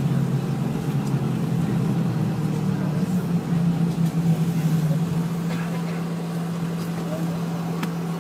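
Airliner cabin noise as the jet rolls along the taxiway after landing: a steady low engine hum with rushing noise, several hum tones settling into one steady hum about halfway through.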